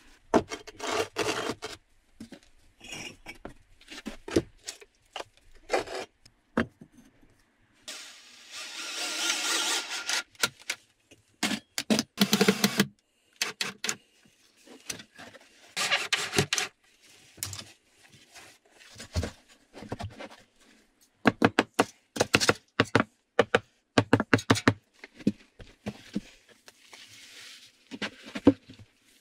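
Hand-sawing a wooden board: runs of quick rasping saw strokes broken by pauses, with knocks and scrapes as the wood is handled. About eight seconds in, one longer, steadier rasp lasts about two seconds.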